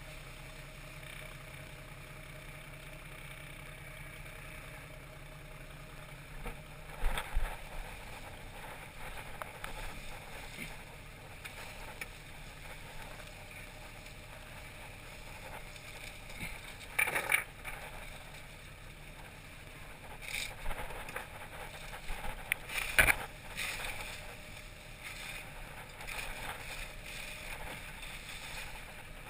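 Fishing trawler's engine running steadily on deck, with three bursts of knocking and clattering as the trawl net's cod-end is handled and emptied into a wooden sorting box.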